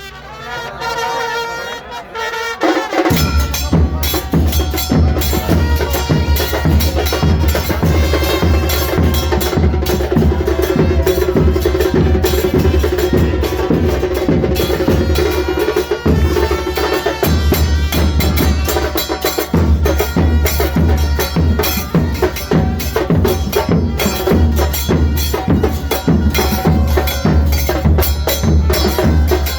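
Music with drums and percussion; a heavy bass beat comes in about three seconds in and drops out briefly twice later on.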